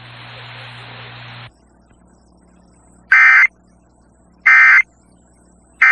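Emergency Alert System end-of-message data tones: three short, identical bursts of warbling two-tone digital code, about a second and a half apart, marking the close of the broadcast tornado warning. Before them a steady broadcast hiss with a low hum cuts off about a second and a half in.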